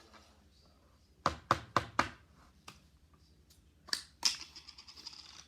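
Handling sounds at a table: four sharp taps in quick succession, a single click, then two knocks followed by a fast rattling scrape.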